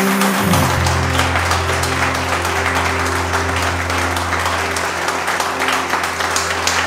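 A roomful of guests applauding over music with long held notes.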